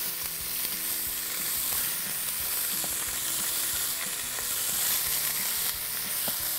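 Pieces of pork neck sizzling steadily in hot oil in a stainless steel pot on very high heat as they are laid in to sear, with small crackles now and then.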